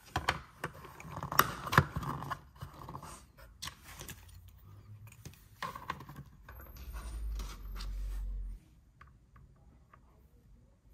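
Hard plastic toy playset pieces clicking, knocking and scraping as they are fitted onto the base. A low rumble lasts about two seconds near the middle, followed by a few faint ticks.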